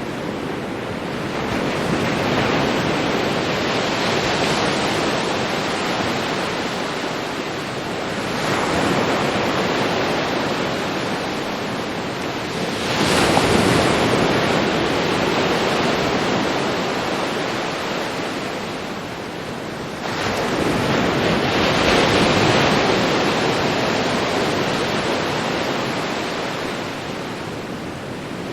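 Ocean surf breaking on a beach: a continuous wash that swells and ebbs, with four waves surging in, one every five to seven seconds.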